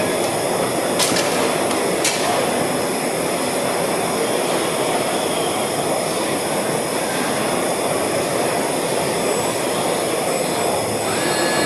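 Steady din of a busy trade-fair hall, with two brief clicks about a second and two seconds in.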